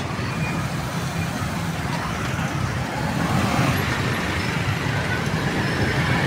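Steady road traffic noise from passing vehicles, with some voices mixed in.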